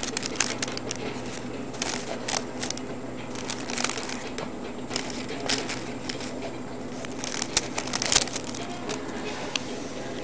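Joint rolling paper crinkling and rustling in the fingers as a joint is rolled by hand, with irregular small crackles.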